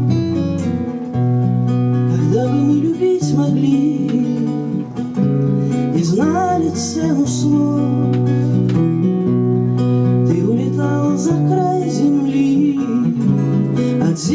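A song with acoustic guitar accompaniment over held low notes. A melody line glides between notes in places, as a singing voice does.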